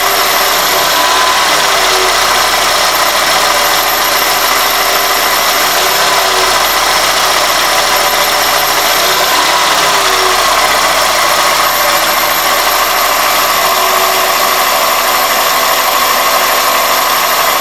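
2001 Toyota Corolla's 1ZZ-FE four-cylinder engine idling with a high-pitched whistle that cuts out and comes back. The fault was cured by cleaning the dirty throttle body and idle air control valve and fitting new gaskets to both.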